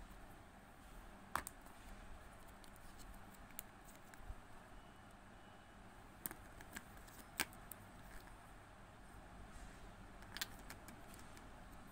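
Scattered sharp clicks and taps of small plastic Fevicryl paint jars and their clear plastic case being handled, the loudest about a second and a half in and again past seven seconds, over a faint steady hiss.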